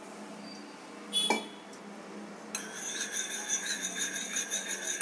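Steel spoon stirring food colour and water in a small bowl: one ringing clink about a second in, then from halfway a steady run of rapid, ringing clinks and scrapes of the spoon against the bowl.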